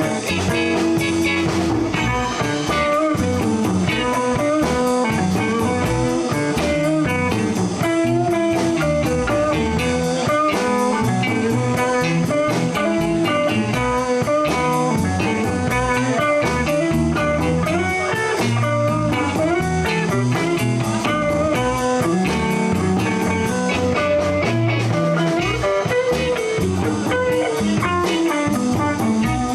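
Live blues band playing an instrumental break: electric guitar lead lines over bass and a drum kit.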